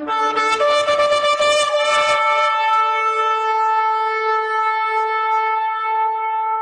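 A long horn blast after a short lower note at the start, with a rough, raspy onset over the first two or three seconds, then one long steady note.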